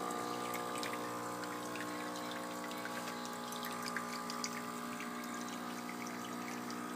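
Saeco espresso machine's pump humming steadily while it runs hot rinse water out of the spout into a cup, with a light spattering of water: the warm-up rinse cycle after a cold start.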